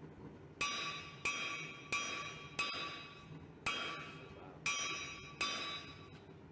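Hammer striking a steel anvil seven times at an uneven pace, each blow ringing out with clear high tones that die away before the next.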